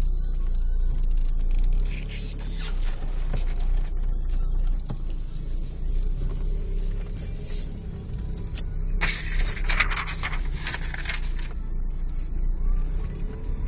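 Inside a Volkswagen Polo's cabin while driving on a dirt track: steady low engine and tyre rumble, with a cluster of rattles and clicks about nine to eleven seconds in.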